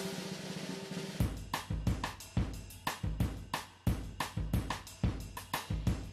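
Intro music with a drum-kit beat: after about a second of a sustained note, kick, snare and hi-hat start in a steady rhythm of about three hits a second.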